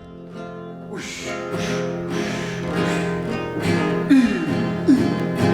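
Acoustic guitar strumming the introduction of a song, fading in and growing steadily louder, with two short gliding tones about four and five seconds in.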